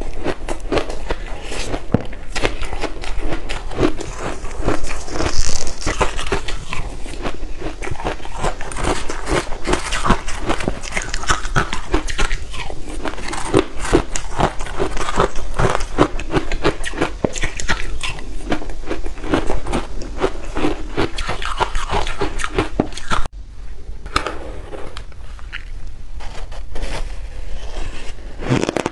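Close-miked biting and chewing of shaved ice dusted with matcha green tea powder: a dense, continuous run of crisp crunches. About 23 seconds in, it cuts to quieter, sparser crunching of powdered ice.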